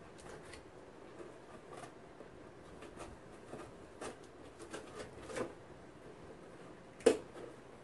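Cardboard shipping box being opened: faint scraping and short clicks as the packing tape is cut and the flaps are worked, with one louder sharp snap near the end.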